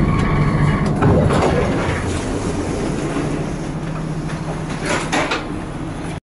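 Tram running on its rails, heard from inside the driver's cab: a steady low hum with a few clicks and knocks, slowly fading. The sound cuts off abruptly near the end.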